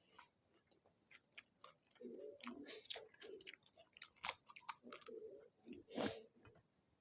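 Close-up chewing of pani puri: crisp puri shells crunching between the teeth in a run of sharp crackles, with two loud crunches about four and six seconds in, amid wet mouth sounds.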